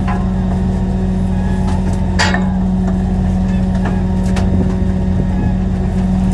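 Fishing boat's diesel engine running steadily, a constant low hum and rumble, with a few sharp knocks on board, the loudest about two seconds in and another about four seconds in.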